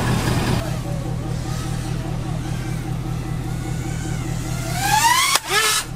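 FPV racing drone's motors whining, rising in pitch as it throttles in over the last two seconds, then a sharp crack and a second knock near the end, over a steady low engine hum.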